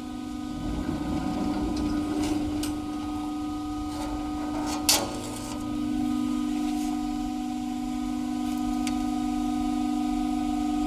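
Hydraulic guillotine shear running with a steady hum of its pump motor. From about half a second to five seconds in, it works through a cutting stroke: a heavier rumble with a few clicks, ending in a sharp snap near five seconds. Fainter clicks follow later.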